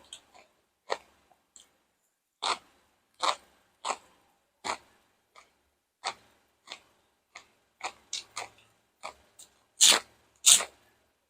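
A person chewing crunchy food: green papaya salad, crispy fried chicken drumsticks and raw vegetables. It comes as a run of short, irregular crunches, about one or two a second, with the two loudest near the end.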